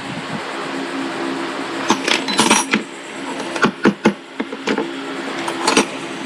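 Metal parts and hand tools clinking and knocking together on a workbench: a string of sharp clinks and taps, most of them from about two seconds in to near the end, over a steady hum.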